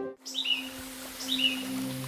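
A bird calls twice, about a second apart, each call a short chirp that slurs downward, right after loud held music notes cut off. A faint low music drone runs beneath and swells near the end.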